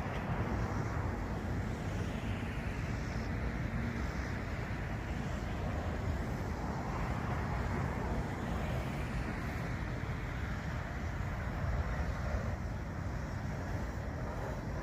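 Cessna Citation XLS business jet's twin turbofan engines, a steady rushing noise that swells gently now and then.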